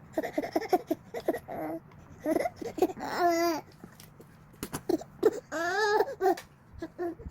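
Baby vocalizing while being fed: short babbling sounds and two longer wavering, whiny cries, with a few light clicks.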